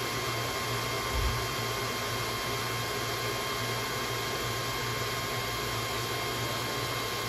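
Creality Falcon A1 Pro laser engraver running while its 2 W infrared module engraves: a steady fan whir with faint steady whining tones and a low hum. A brief low thump about a second in.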